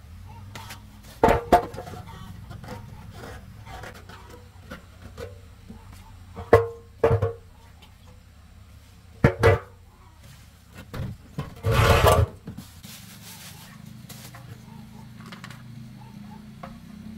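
Hand-tool work on motorbike parts: a few short knocks, mostly in pairs, and one longer scrape near the middle, over faint background music.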